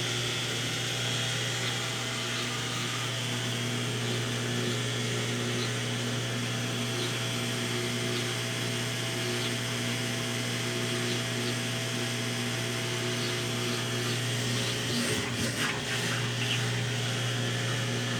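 Consul Facilite 10 kg top-loading washing machine running its wash stage on a load of blankets: a steady motor hum. About fifteen seconds in, the hum wavers briefly with a few clicks.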